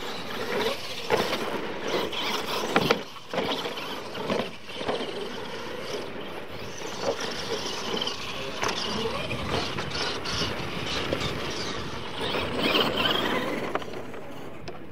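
Radio-controlled monster trucks racing on a dirt track, their drivetrains whining and tyres churning dirt, with sharp knocks from ramps and landings in the first few seconds.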